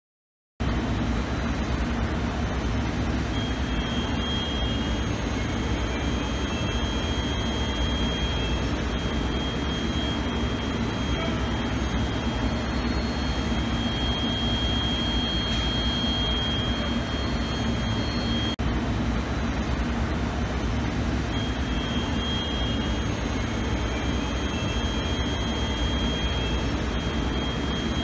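BTU Pyramax 125A reflow oven running: the steady whir of its convection blowers, with a low hum and a thin high whine that drops out and returns partway through.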